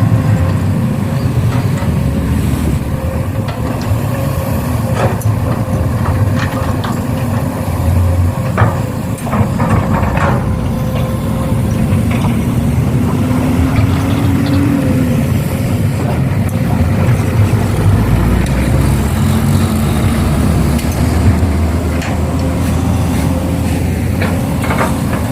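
Heavy diesel machinery running, an excavator working beside a dump truck: a continuous low engine rumble with a faint steady tone, scattered knocks, and a rising whine about halfway through.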